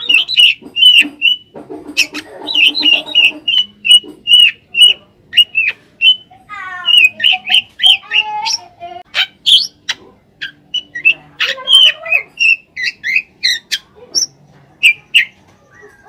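Caged drongo (srigunting) singing a long, varied song of rapid sharp whistled notes in quick runs. About two seconds in comes a harsh, scratchy passage, and between about six and eight seconds a fast rattling trill.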